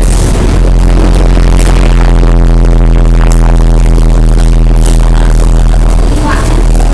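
Loud background music with a heavy, steady bass.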